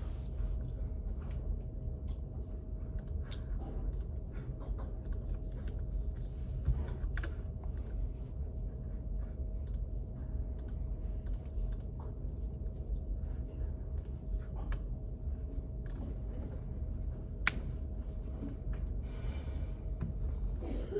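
Typing on a computer keyboard: scattered, irregular key clicks over a steady low room hum with a faint constant tone, and a brief rustle near the end.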